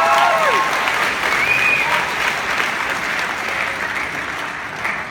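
Audience applauding and cheering, with shouts rising and falling in pitch near the start; the clapping slowly dies down.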